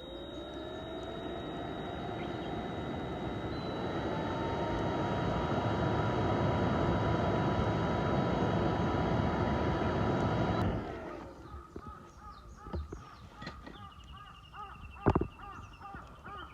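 A steady mechanical running noise with a few steady tones grows louder for about ten seconds, then cuts off suddenly. After that come short bird calls and a few sharp knocks.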